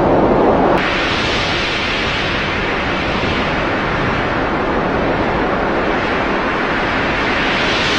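Strong storm wind rushing loudly over the microphone, a steady roar of noise with no voices. The sound changes abruptly a little under a second in, turning brighter and thinner.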